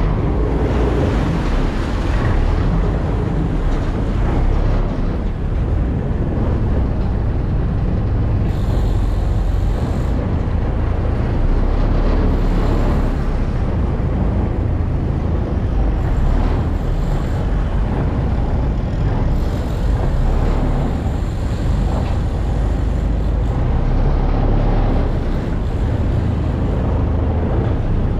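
A steady, loud low engine rumble with a faint high whine that comes and goes several times.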